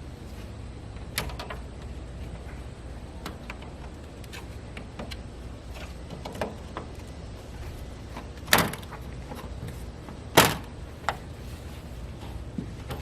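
A few scattered sharp knocks and clunks over a steady low rumble. The two loudest come about two seconds apart in the second half.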